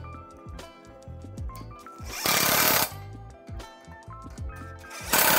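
Cordless impact driver hammering quarter-inch bolts down with a 3/8-inch socket, in two short bursts, one about two seconds in and one near the end, over background music with a steady beat.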